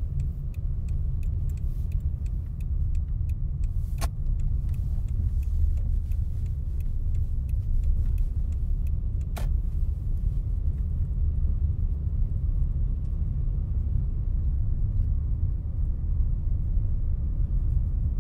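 Car interior noise while driving: a steady low rumble of engine and tyres heard from inside the cabin, with a regular light ticking through the first half and two sharper clicks.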